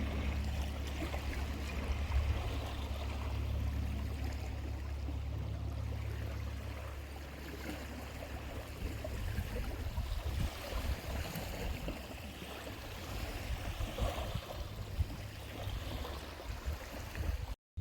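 Wind buffeting the microphone: a steady low rumble for about the first eight seconds, then uneven gusts and rustle. The sound cuts out briefly near the end.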